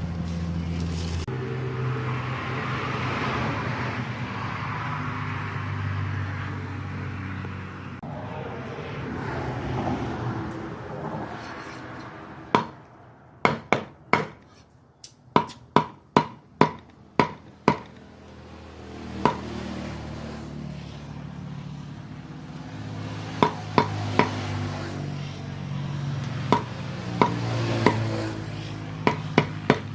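Food being chopped with a knife: a run of sharp strikes, about two a second, starting about twelve seconds in, with scattered further strikes near the end. A steady low hum fills the first part.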